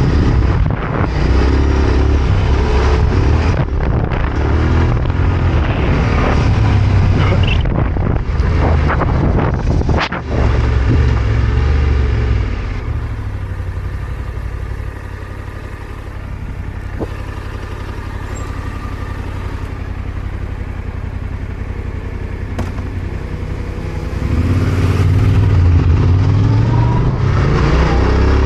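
Yamaha Ténéré 700 parallel-twin motorcycle engine under way off-road. It pulls hard for about the first twelve seconds with a few sharp knocks, eases off to a quieter steady run for about ten seconds, then opens up again near the end.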